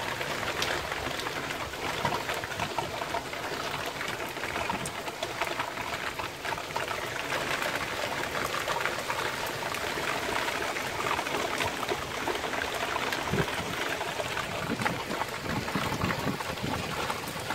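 Heavy rain falling: a steady dense hiss, peppered with the ticks of individual drops striking surfaces.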